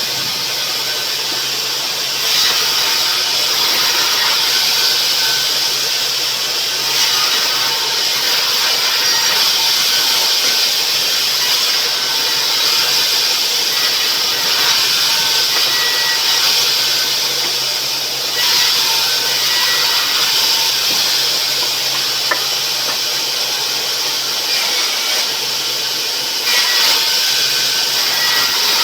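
Sawmill saw running and cutting rubberwood: a continuous high-pitched rush of noise over a steady low motor hum, swelling a little at a few points.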